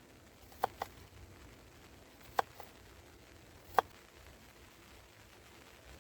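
Three sharp knocks, the first two each followed quickly by a softer one, over a faint steady hiss.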